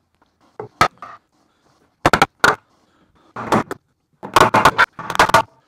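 Hammer striking the wooden crate framing again and again, knocking the nailed boards loose. The blows are sharp and irregular: one about a second in, then a run of blows from about two seconds on, several in quick pairs.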